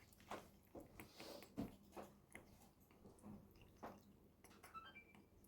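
Near silence broken by faint scattered clicks from a Congo African grey parrot's beak, then near the end a quick run of about five short, high whistled notes.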